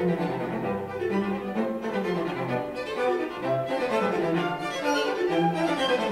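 Instrumental music led by bowed strings, violin and cello, playing a moving melody over a steady low bass line.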